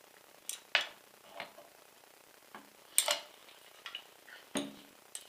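Scattered metallic clicks and clunks of airsoft rifle parts being handled, about six separate knocks with the loudest about three seconds in, as the metal outer barrel is worked free of the receiver.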